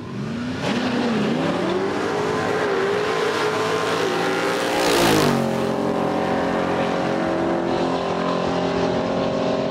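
Two street-class drag cars launching off the line at full throttle, their engine note climbing steadily in pitch. About five seconds in there is a brief louder burst and the pitch drops suddenly, then the engines carry on at a lower, steady note as the cars run down the strip.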